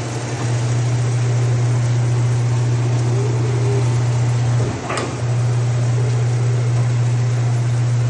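Van Norman 561 surface grinder running with a steady low electric hum. A short sharp click about five seconds in.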